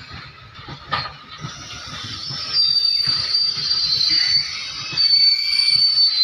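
Open-top goods wagons of a coal train rolling past, their steel wheels squealing high and shrill against the rails over a low rumble. The squeal sets in about a second and a half in and grows loud about a second later, with a single clank about a second in.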